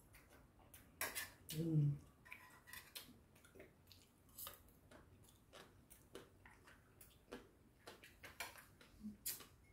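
Metal chopsticks and spoon clicking and scraping against a stainless steel compartment meal tray, many light irregular clicks. A brief vocal sound from the eater about a second and a half in is the loudest moment.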